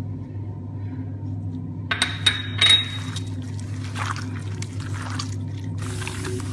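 Raw marinated chicken pieces being squished and mixed by a gloved hand with sauce in a stainless steel bowl, giving wet squelches and splats. A few sharp clinks come about two to three seconds in. A steady low hum runs underneath.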